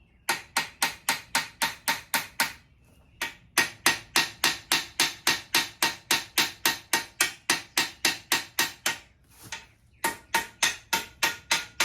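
A hand hammer striking hot steel on an anvil in rapid, even blows, about five a second, each blow ringing. The blows come in three runs, with short pauses about three seconds in and near the end.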